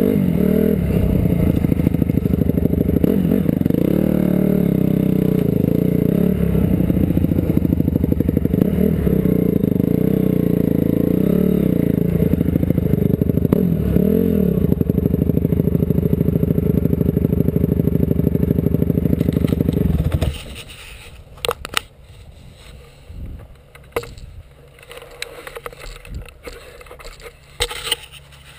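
Honda CRF250R dirt bike's single-cylinder four-stroke engine running loud and close, its revs rising and falling as it rides, then cutting off suddenly about twenty seconds in. After that come scattered knocks and scrapes as the helmet camera is handled.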